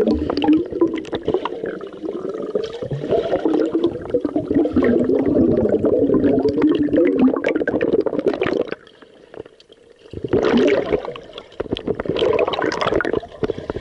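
Water churning and gurgling as heard by a camera under water, muffled, with small bubble clicks; it falls quiet for about a second around nine seconds in, then the churning comes back.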